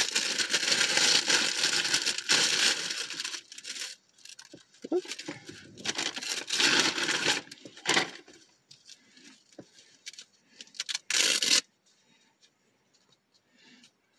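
Plastic wrapping crinkling and tearing as gloves are unwrapped by hand: a dense stretch for the first three seconds or so, then shorter bursts with pauses, the last one about eleven seconds in.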